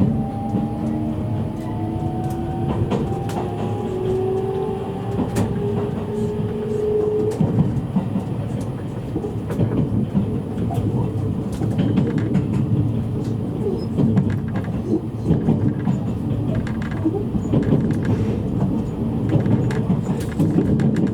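JR East E653-series electric train heard from inside a motor car as it picks up speed: the traction motors' whine rises in pitch for the first seven seconds or so, then fades. After that comes steady running rumble, with sharp clicks from the wheels passing over rail joints.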